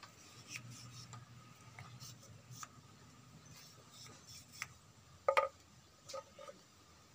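Thin green bamboo tubes handled and tapped against each other: scattered light clicks and rubs, with a louder short knock about five seconds in and two small ones just after.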